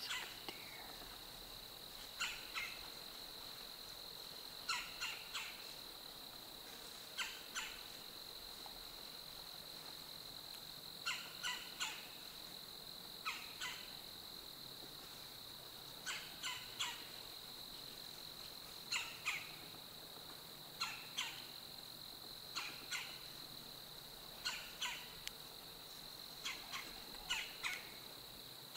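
A bird calling over and over: short calls in quick twos and threes, about every two to three seconds, over a faint steady high-pitched tone.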